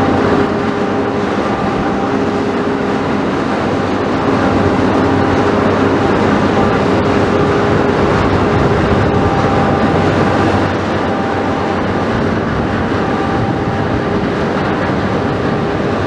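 Inland tanker Somtrans XVII's diesel engine running steadily as the ship passes, a dense rumble and hiss with a few steady humming tones; the level drops a little about ten seconds in.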